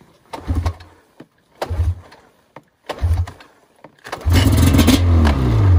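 Snowmobile engine cranked in three short bursts without catching, then firing about four seconds in and running briefly, its pitch dropping near the end as it falters. The sled has been starting, idling a moment and shutting off, which the riders suspect is a fuel-delivery problem such as vapor lock.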